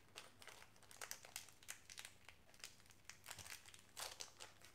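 Faint crinkling of a small plastic parts bag, with light handling clicks, as a soldering-iron tip is unwrapped. It comes as a run of short rustles, strongest about four seconds in.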